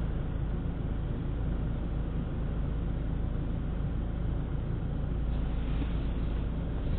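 A car driving, heard from inside the cabin: a steady low rumble of engine and tyre noise, with a brief higher hiss about five seconds in.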